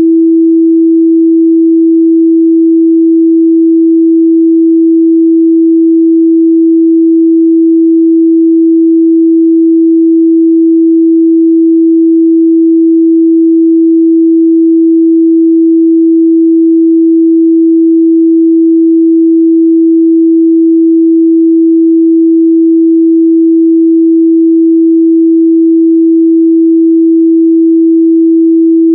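A steady 328 Hz sine-wave test tone, one pure midrange pitch held at constant loudness throughout.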